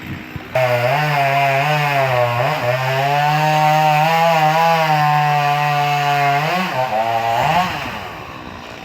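Chainsaw throttled up suddenly to full revs and held there for about seven seconds, cutting into a coconut palm trunk, with two brief dips in pitch. Near the end it is released and the engine note falls back toward idle.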